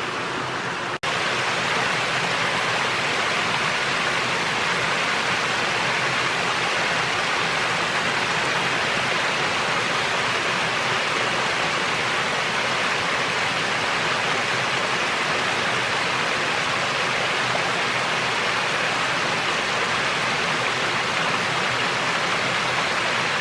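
Creek water rushing steadily over rock cascades and a waterfall, with a brief break about a second in where the sound cuts and resumes slightly louder.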